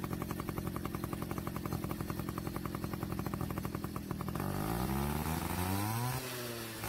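A small motorbike engine idling with a quick, even putter, then revving up about four seconds in and dropping back just before the end.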